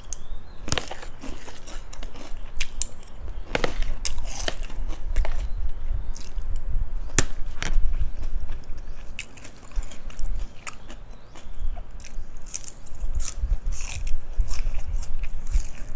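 Crunchy biting and chewing of cucumber salad with pork cracklings: an irregular string of sharp crunches.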